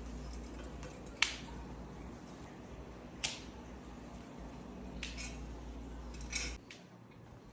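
Four short, sharp clicks spaced a second or two apart, the first two loudest, over a steady low hum that stops near the end.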